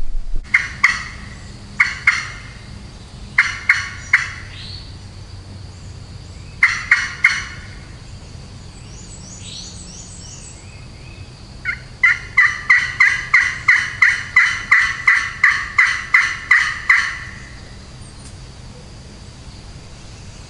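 Hen turkey yelps on a hunter's turkey call, used to draw a gobble: short sets of two to four sharp yelps, then a long run of about fifteen even yelps at roughly three a second.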